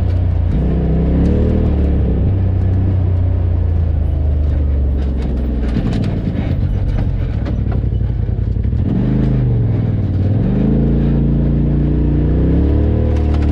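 Polaris RZR XP 4 Turbo S side-by-side's turbocharged twin-cylinder engine running under load on a dirt trail, its pitch rising and falling with the throttle. It drops off twice midway, then climbs again near the end, with scattered knocks and rattles from the rough trail.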